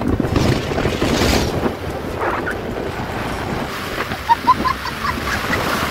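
Wind rushing over a phone microphone on a moving motorcycle, with the bike's road noise underneath. A few quick high chirps come about four seconds in.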